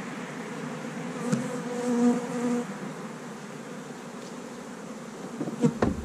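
Honey bees buzzing around an opened hive, a steady hum that swells as bees pass close, loudest around two seconds in. A couple of sharp knocks near the end.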